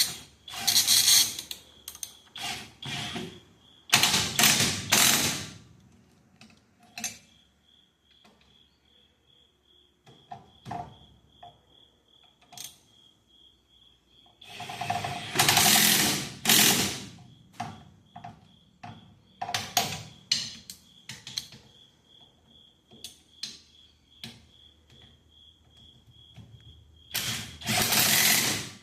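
Ratchet wrench with a socket turning the hub bolts, in several runs of rapid clicking a second or two long, with single clicks and tool clinks in between.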